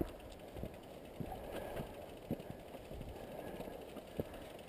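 Mountain bikes being walked up a dirt trail: irregular footsteps and knocks of the bikes jolting over the ground, with a faint ticking from a coasting rear hub.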